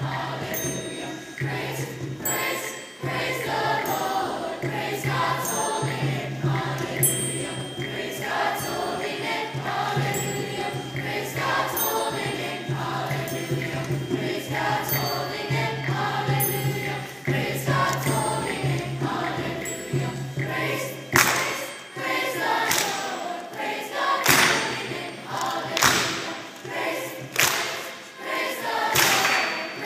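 Middle-school choir singing over a steady low accompaniment. About two-thirds of the way through, the accompaniment stops and the singers clap along, about one clap a second.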